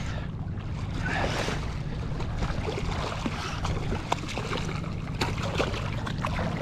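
Wind rumbling on the microphone over water sounds around a kayak, with scattered small splashes and knocks.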